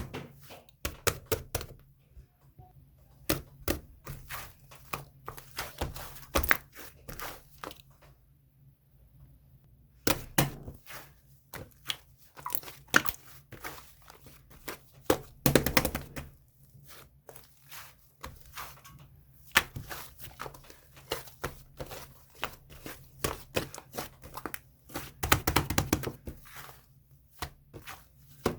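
Pill slime being squeezed and kneaded by hand: bursts of crackling clicks and pops, with a few short pauses between handfuls.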